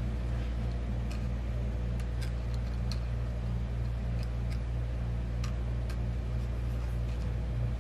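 Light, scattered metal clicks and ticks as small parts of a boro-style vape box mod are handled and threaded together, over a steady low hum.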